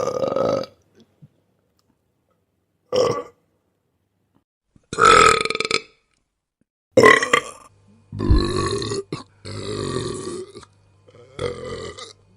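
A series of about seven human burps, one after another with short silent gaps between them. Some are brief and a few run about a second, each with a clear belching pitch.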